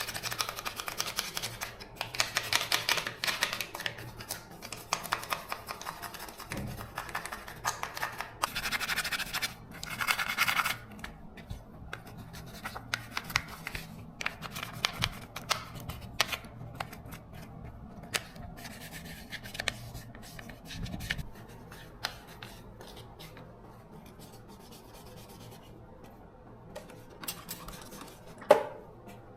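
Hand work on small parts: repeated scraping and rubbing strokes with scattered clicks, busy for about the first ten seconds, then sparser and quieter, with one sharp click near the end.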